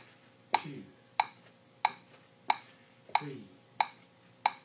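Metronome clicking steadily at about 92 beats a minute, seven sharp clicks.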